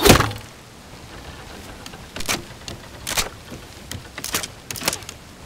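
Film soundtrack sound effects: a loud hit right at the start, then a series of short, sharp swishes and knocks about once a second over a low steady background.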